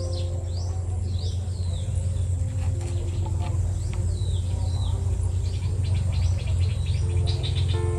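Small birds chirping: repeated short falling chirps and a fast trill near the end, over soft background music with held notes and a steady low hum.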